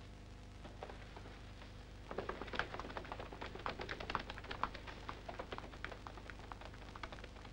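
Faint, quick, irregular patter of running footsteps on a road, starting about two seconds in.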